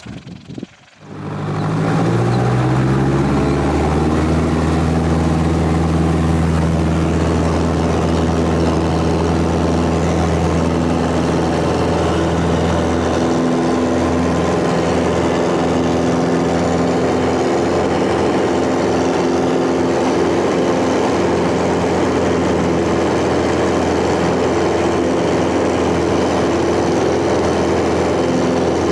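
An engine starts about a second in, rises briefly in pitch and settles into a loud, steady run.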